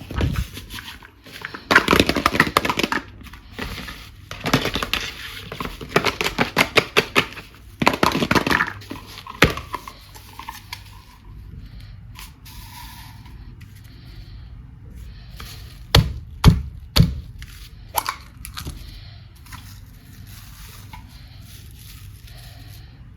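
Plastic toy packaging being handled, in three spells of rapid crackling, then four sharp separate clicks or knocks.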